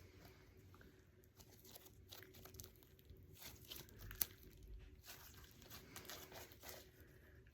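Faint, irregular soft clicks and crackles of slime being stretched and squished by hand, with one sharper click about four seconds in.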